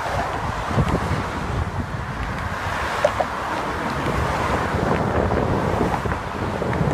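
Wind buffeting the microphone in a steady low rumble, mixed with the noise of car traffic passing alongside.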